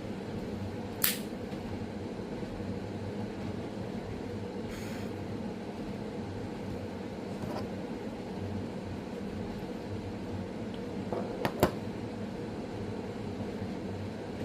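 Steady room hum, broken by a sharp metallic click about a second in and a quick run of clicks near the end: the lid and flint wheel of a Zippo lighter being worked to relight a pipe.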